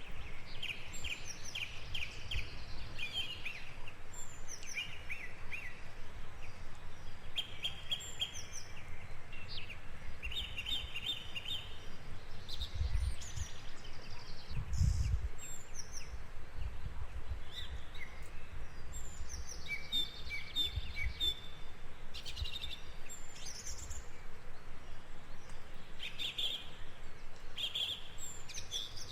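Several songbirds singing and calling, short chirps and quick trills overlapping over a steady background hiss, with a few brief low rumbles.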